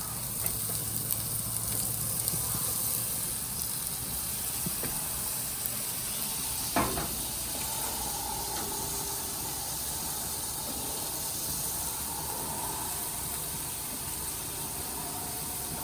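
Beef steaks sizzling steadily on a hot gas grill, a little beer just poured over them. A brief sharper sound about seven seconds in.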